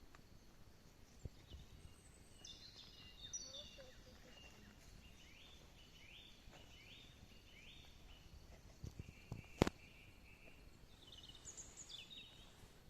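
Wild birds singing faintly: bursts of high chirping song, a run of four quick rising notes, and more chirps near the end. A single sharp click a little past halfway is the loudest sound, with a few soft thumps just before it.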